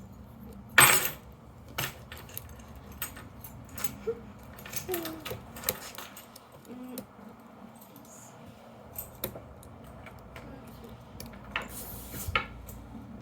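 Keys jangling and clicking against locks as they are handled, in irregular sharp clinks, with a loud clink about a second in and a few more near the end.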